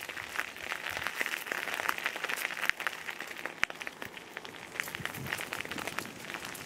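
Irregular crunching and crackling of footsteps on a gravel path, mixed with rustle from the handheld camera.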